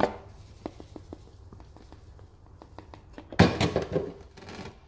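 Loose charcoal granules from a Toyota Corolla's in-tank charcoal canister falling onto a bench in scattered light ticks. About three and a half seconds in, the hollow plastic canister housing knocks and rattles against the bench for about a second, the loudest sound.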